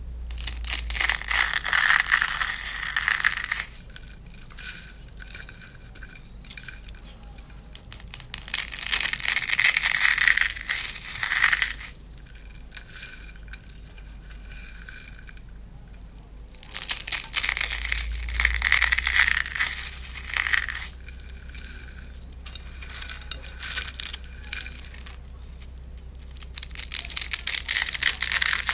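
Dry instant ramen noodles and crunchy curly snacks being crushed by hand in a bowl: dense crackling and crunching in four bursts a few seconds long, with softer crackles between.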